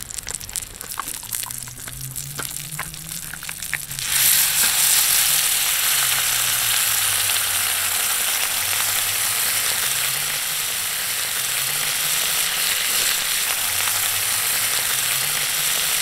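Hamburger steak frying quietly in an iron frying pan, with scattered small crackles. About four seconds in, a loud, steady sizzle starts as the sauce for the stewed hamburger bubbles in the hot pan.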